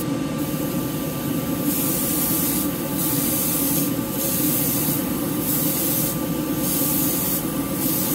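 Airbrush spraying thinned acrylic paint in short hissing passes, about one a second, starting about two seconds in. Under it, the steady hum of a spray booth's exhaust fan.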